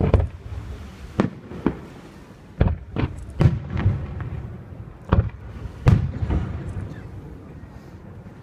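Fireworks display: aerial shells bursting in an irregular series of about eight sharp booms, each trailing off in a low rumbling echo, with the biggest bursts about a second in and near six seconds in.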